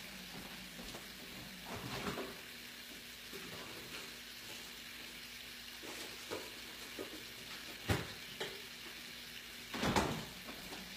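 Faint, steady sizzle of a white wine garlic cream sauce cooking over medium-high heat in a pan. A few short knocks sound from elsewhere in the room, the loudest near the end.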